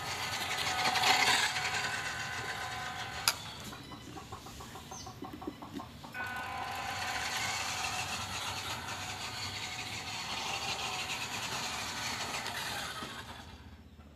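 WPL D12 RC mini truck's electric motor and gears whining as it drives on tile, cutting off with a click about three seconds in. The whine starts again about six seconds in and fades near the end.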